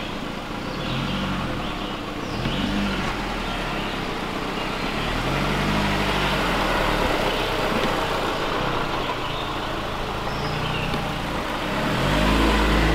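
Jeep Cherokee Trailhawk engine running at low speed as the SUV crawls along a muddy dirt trail. The engine note rises and falls with the throttle, and it gets louder near the end as the Jeep passes close by.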